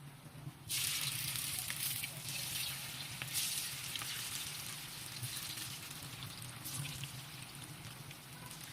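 Chicken pakora deep-frying in hot oil: a loud sizzle starts suddenly about a second in, then slowly dies down.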